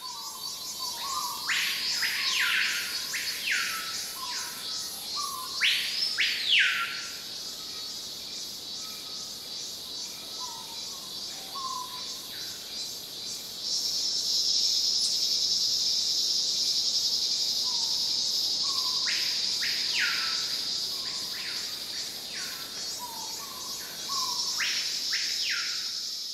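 Forest birds giving repeated rising whistled calls over a high, steady chorus of insects, with a louder insect drone joining about halfway through. The sound fades in at the start and fades out near the end.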